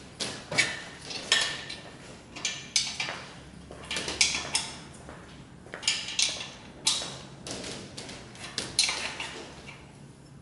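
A metal hand tool, a wrench or spanner, clinking against the bolts and metal base of a telescope mount's pier: a dozen or more sharp metallic clinks at an uneven pace, each ringing briefly.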